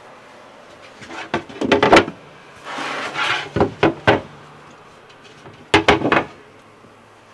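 Solid-wood cupboard doors with gas-piston hinges being opened and handled: a series of wooden knocks and clacks, with a short rushing noise about three seconds in.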